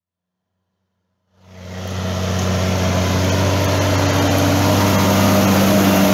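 Fendt Favorit 711 tractor's six-cylinder diesel engine running steadily at constant speed under load while pulling a plough. The sound fades in about a second in, after a short silence.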